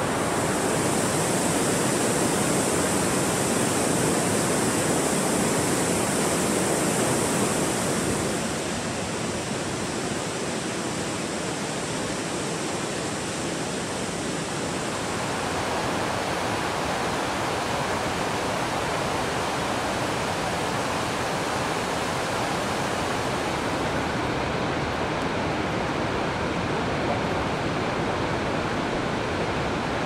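Waterfall and rushing water: a steady, even noise of falling water that changes in level and tone a few times, dropping a little about a quarter of the way in.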